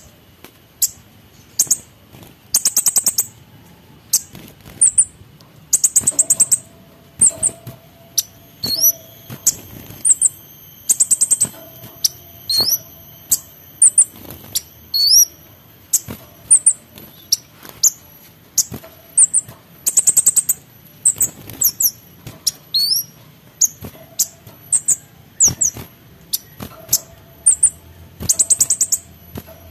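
Male orange-headed thrush singing in an energetic, aggressive outburst: short, very high-pitched trills and quick upward-sliding whistles, delivered in rapid phrases about once or twice a second.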